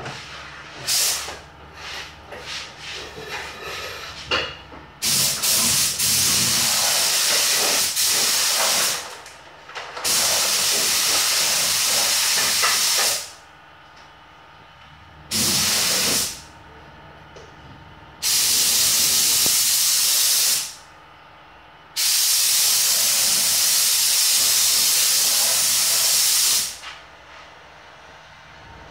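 Compressed-air spray gun (Iwata Airgunza 1.3) hissing in bursts as it sprays clear coat. Several quick spurts come first, then about six longer passes of one to four seconds each, the trigger released in between.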